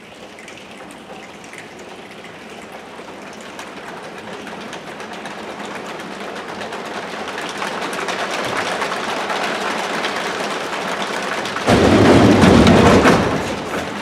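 A choir making a rainstorm with their bodies: a hiss of rubbing hands, snaps and pats that grows steadily louder like building rain, then a loud burst of thunder-like stomping for about a second and a half near the end before it falls back.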